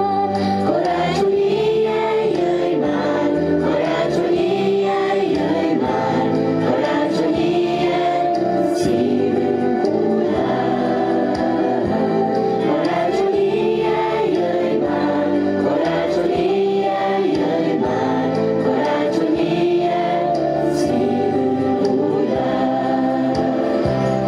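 A choir singing a song, with instruments accompanying.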